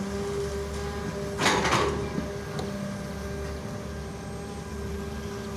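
Hitachi UH083 long-reach excavator running with a steady humming drone as it digs. About a second and a half in, a brief loud scraping rush as the bucket drags through the soil.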